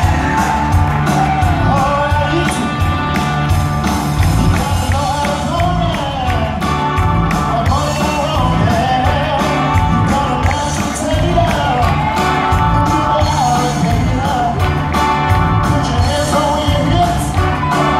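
A rock-and-soul song performed live: a lead singer over a band, with a steady drum beat and a prominent bass line.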